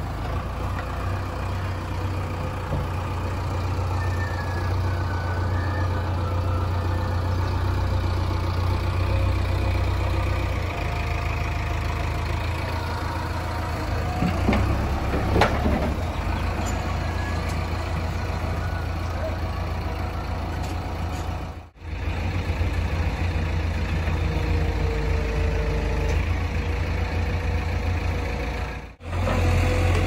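JCB 3DX backhoe loader's diesel engine running steadily as the backhoe arm works, with a single metallic clank about fifteen seconds in.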